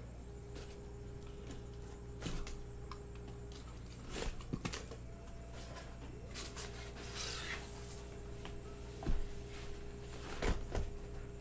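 Cardboard shipping case being opened and handled: flaps scraping and rubbing, with a few sharp knocks, a brief rustling scrape about seven seconds in, and two louder knocks near the end as the boxes inside are pulled out.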